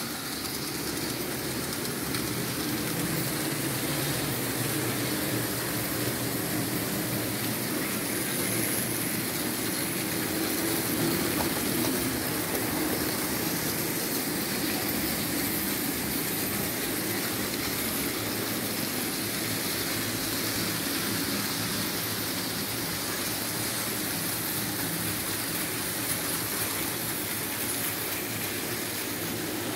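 Märklin H0 model train running steadily: the electric motor of the V 200 diesel locomotive model whirring and the coaches' wheels rolling over the track, a little louder about ten seconds in.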